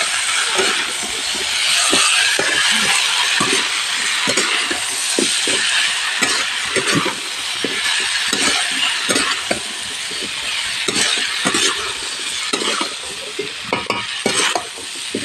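Potato and carrot pieces frying in oil in a metal kadhai, sizzling steadily while a spatula stirs them, with frequent quick scrapes and knocks of the spatula against the pan.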